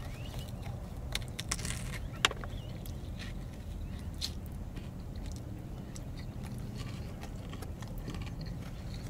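A person biting into and chewing a chili hot dog, with scattered small clicks, the sharpest about two seconds in, over a steady low hum inside a car.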